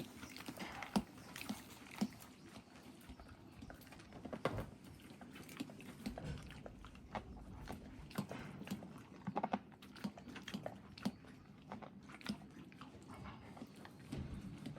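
Thoroughbred horse chewing hard mint candies, with irregular crunches and clicks as the candy breaks between its teeth.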